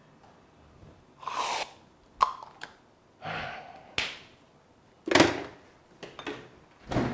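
A man breathing hard in short gasps and huffs, about five in a row, with a few sharp clicks between them.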